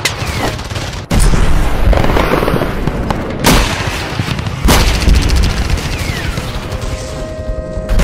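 Battle sound effects: gunfire and heavy explosion booms in a dense barrage, with three big blasts standing out, over music.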